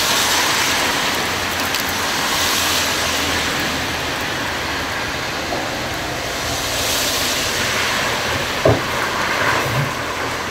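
Steady hiss of rain falling on wet paving and pipework, with a short knock late on.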